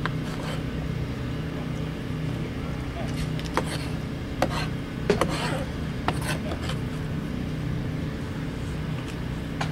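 Scattered knife strikes and clinks of smoked pork being chopped on a cutting board, a few sharp knocks, mostly in the middle and once near the end, over a steady low machine hum.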